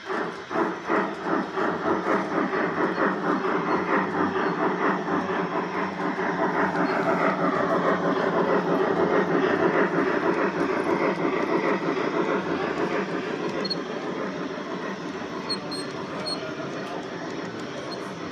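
G-scale LGB model of an HSB class 99 steam tank locomotive chuffing in a steady rhythm as it approaches, with the running noise of its wheels and wagons on the track. The sound is loudest as it passes about ten seconds in, then eases off as the wagons roll by.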